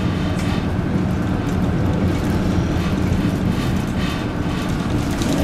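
Inside a 1999 NABI 40-LFW low-floor transit bus under way: its Detroit Diesel Series 50 inline-four diesel runs with a steady low drone and road rumble, with a few light rattles from the cabin.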